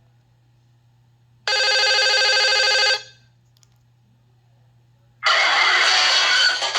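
Nokia 5610 mobile phone playing its preloaded ringtones through its loudspeaker: a steady ring-like tone lasting about a second and a half, then a gap, then the next ringtone starts about five seconds in as a noisier tune with a rhythmic pulse.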